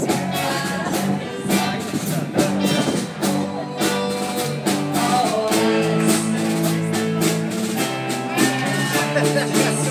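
Live band playing through a PA speaker: a drum beat with keyboard chords held out over it.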